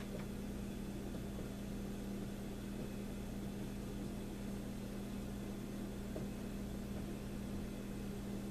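Steady low hum with an even hiss: room tone.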